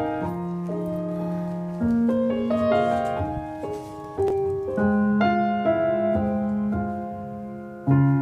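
Piano playing the slow, gentle introduction of a ballad, with new chords struck about every one to three seconds and left to ring; no voice has come in yet.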